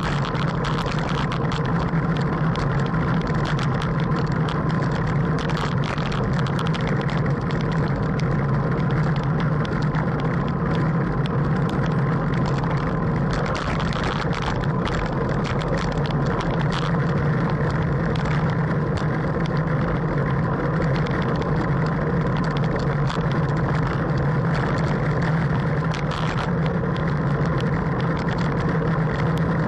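Wind rushing over a bicycle-mounted camera's microphone at about 17–18 mph: a steady low rumble mixed with tyre and road noise, and scattered small clicks and knocks.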